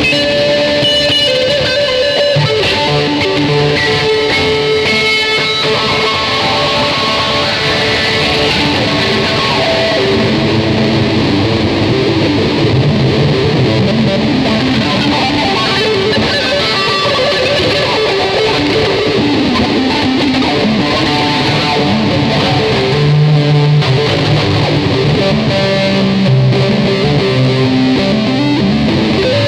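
Ibanez electric guitar played loosely, with strummed chords and picked notes running on without a break.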